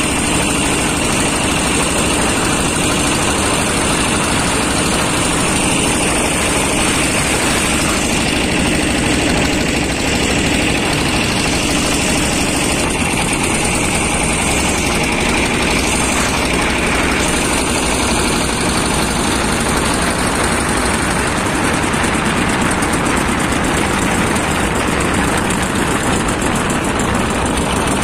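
Boat engine running steadily, a loud continuous drone with a constant pitch.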